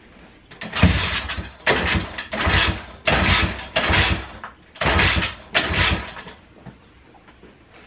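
Pit bike's kick-starter worked about seven times in quick succession, each kick turning the engine over without it catching into a steady run. The bike is fire-damaged and is being tried for the first time.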